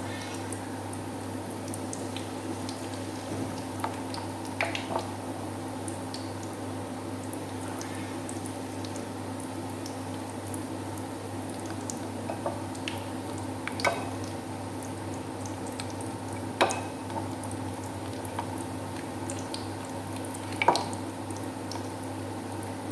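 Battered banana blossom deep-frying in hot oil: a steady bubbling with a few sharp clicks now and then, the loudest near the end.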